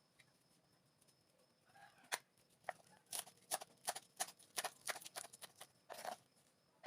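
A quick run of sharp taps or clicks, roughly two to three a second, starting about two seconds in and stopping about a second before the end.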